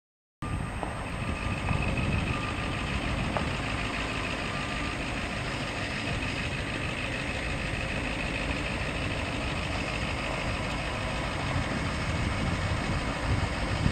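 1993 Ford F-350 crew cab service truck driving slowly, its engine running steadily; the sound starts about half a second in.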